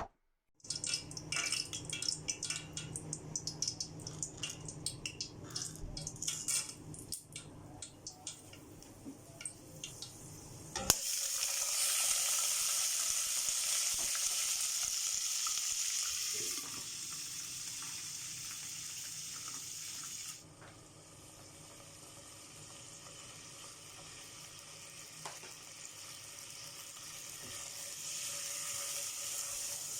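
Scattered clinks and knocks of a pot and utensils. About eleven seconds in, food dropped into hot oil sets off a loud steady sizzle that drops in level twice and then slowly grows louder again.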